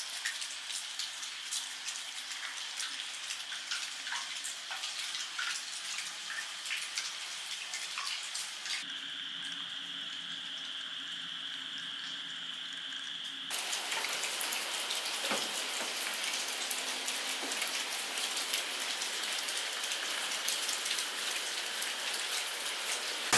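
Water splashing and dripping in many small drops, then, partway through, a tap stream pouring into a filled open-air bathtub, followed by a louder, even rush of water.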